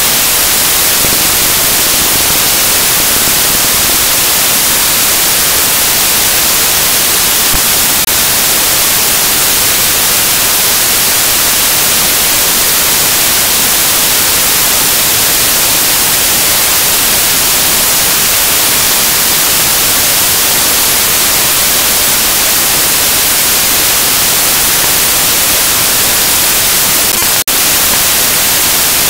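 Loud, steady static hiss like white noise, with no music or voice, and a momentary dropout near the end.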